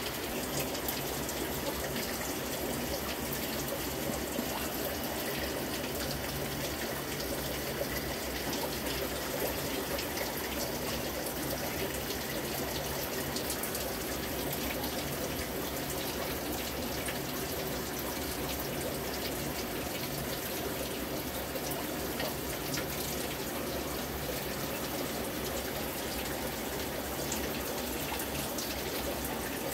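Aquarium filter running, with a steady sound of moving water in the tank.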